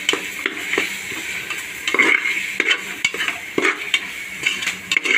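Prawn masala sizzling in a pressure cooker while a metal spoon stirs it. The spoon scrapes and knocks against the pot at irregular intervals.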